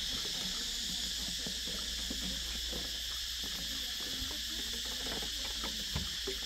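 Steady, high-pitched drone of insects in the surrounding trees, unbroken throughout.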